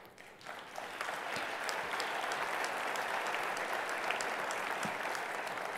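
Audience applauding: the clapping builds up within the first second and then holds steady.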